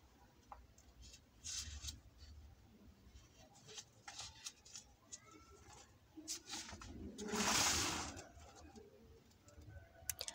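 A paper book page being turned: a rustle of about a second, the loudest sound, coming a little past the middle, among faint scattered clicks of handling.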